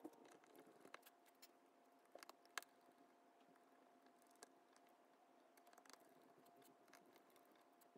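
Near silence, with faint scattered clicks of gloved fingers pressing and handling small parts inside an opened smartphone, over a faint steady tone.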